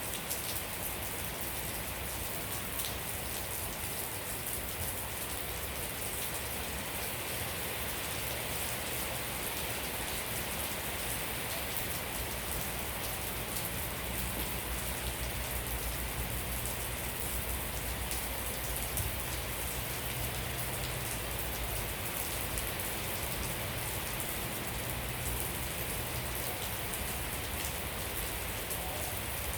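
Steady rain falling, with a dense pattering of drops hitting surfaces.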